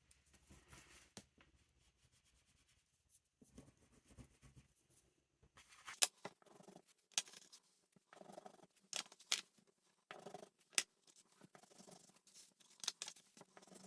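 Quiet handling of art supplies at a table: short scratchy strokes and scattered light clicks and taps, irregular and spread across the stretch.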